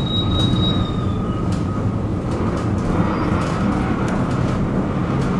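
Tram running along its rails: a steady low rumble of wheels and motors, with a thin high wheel squeal that fades about a second in and scattered light clicks from the track.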